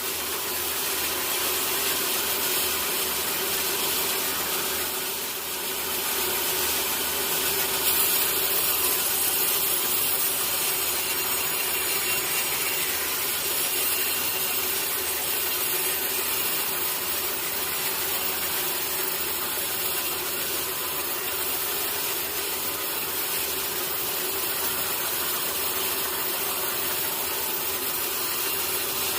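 Sawmill saw cutting steadily through a teak log, a continuous rasping noise over the steady hum of the mill's motor.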